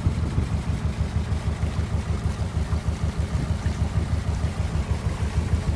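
Small river tour boat's engine running steadily, a low, evenly pulsing hum heard from on board.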